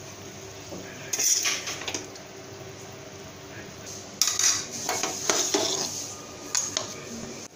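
Metal spatula scraping and clinking against a wok as fried vegetables are scooped out onto a plate. It comes in two spells: one about a second in, and a longer one from about four seconds in.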